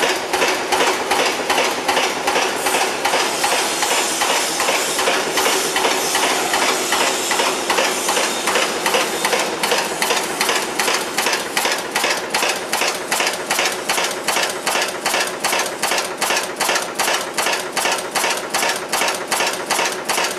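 RA-15S cold heading machine (screw former) running at production speed. Its header ram strikes in a steady metallic knocking rhythm of about three strokes a second, each stroke cold-forming a screw blank.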